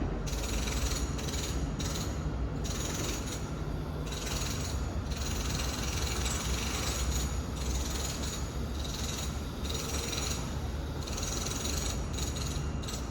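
Home renovation noise heard from a distant room, muffled: a steady low rumble with about a dozen short bursts of harsher, higher-pitched machine noise, each under a second, starting and stopping.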